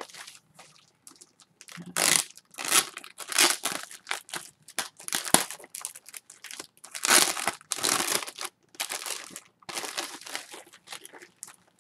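Clear plastic packaging crinkling as it is handled, in irregular bursts from about two seconds in.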